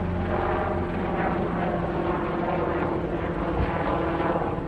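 UH-60 Black Hawk helicopter flying overhead: steady rotor and twin turboshaft engine noise, with a constant low hum under it.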